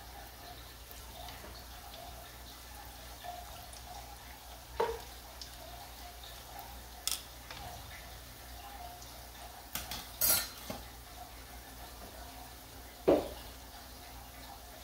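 Dough rings frying in shallow oil with a faint steady sizzle, broken by several sharp clicks of metal tongs against the pan, the loudest near the end.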